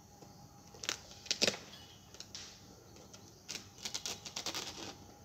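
Knife blade stabbing and slicing through packing tape and cardboard on a parcel: short, sharp clicks and scrapes, a few single ones at first, then a quick run of them about four seconds in.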